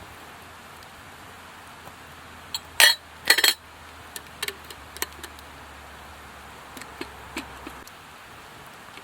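Metal camp cookware and utensils clinking and clattering. Two loud clatters come about three seconds in, followed by scattered light taps over a steady faint hiss.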